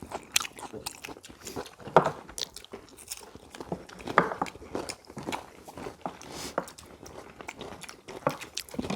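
People eating at close range: biting, crunching and chewing food, with short sharp clicks scattered irregularly throughout and the loudest crunches about two and four seconds in.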